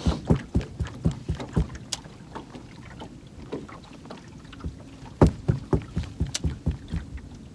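Irregular knocks and taps in a fishing boat, the loudest pair a little past the middle, over a faint steady low hum.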